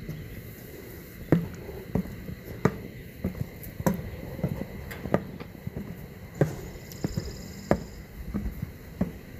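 Footsteps climbing a steel fire tower's stairs with wooden treads: a steady series of knocks, about one and a half a second.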